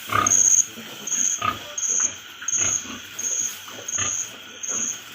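Pigs grunting and squealing in short, irregular calls. Behind them, a high-pitched pulse repeats steadily about every 0.7 s.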